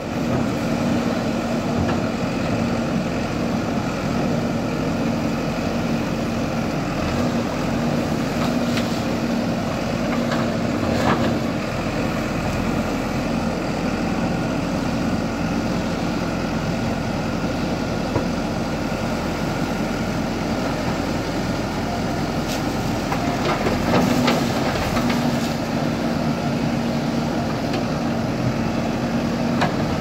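Diesel engine of a JCB 3DX backhoe loader running at a steady speed while the backhoe digs, with a few faint knocks.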